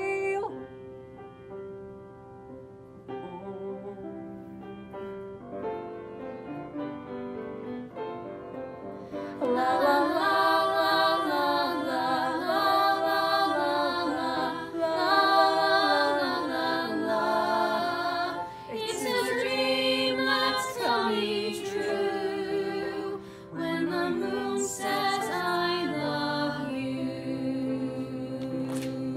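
Musical-theatre song: a soft instrumental accompaniment plays alone at first. About nine seconds in, a group of voices joins, singing in harmony, and the music grows louder.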